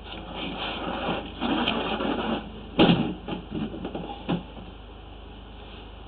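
Scraping and rustling as a drain inspection camera is pulled back out of a sewer pipe to a floor drain, where the red jetter hose is being handled. There is a sharp knock about three seconds in and a few lighter knocks just after.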